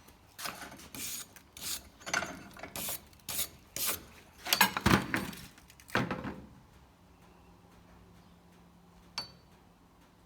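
A run of about a dozen short scraping strokes, roughly two a second, then one sharp click near the end.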